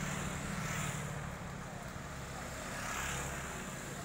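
Street traffic with motorbikes passing close by, one after another. A steady low engine hum swells as each goes past, about a second in and again about three seconds in.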